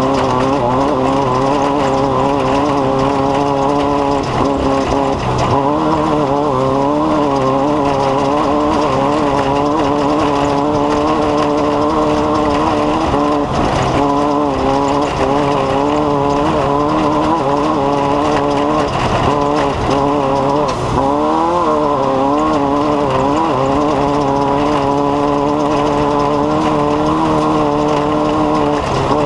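A small engine running steadily for the whole stretch, its pitch wavering slightly up and down.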